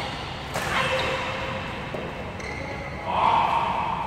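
A badminton rally: a racket strikes the shuttlecock sharply about half a second in, with shoes squeaking on the court floor. Near the end comes a louder, drawn-out sound.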